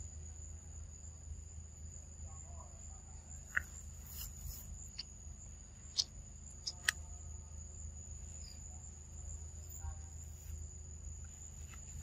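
Steady high-pitched drone of insects, a single unbroken tone over a low steady rumble. A few brief sharp sounds stand out about a third of the way in and just past the middle.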